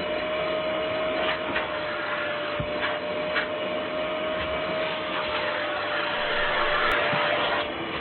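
Vacuum cleaner running steadily: an even rushing hiss of air with a constant motor whine, and a few light knocks.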